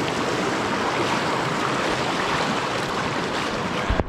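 Creek water rushing over a small rocky cascade in a steady, even rush. Near the end, a thump from hands handling the camera.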